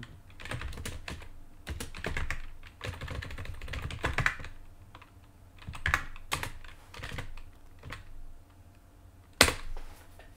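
Typing on a computer keyboard: irregular runs of keystrokes with short pauses, and one louder keystroke about nine and a half seconds in.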